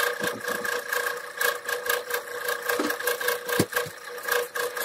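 Metal lathe turning a steel bar, a steady pitched whine of several tones with fast, irregular clicking over it.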